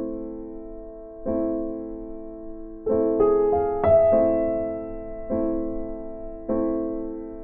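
Background piano music: slow chords struck about every second and a half, each ringing out and fading, with a few higher notes added near the middle.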